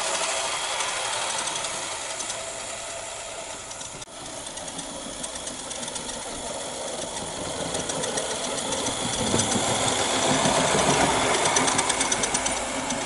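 Small gas-fired live-steam tram locomotive with a two-cylinder oscillating engine and gear drive, running along garden-railway track with a fast, even ticking chuff. It grows louder in the second half as it comes close.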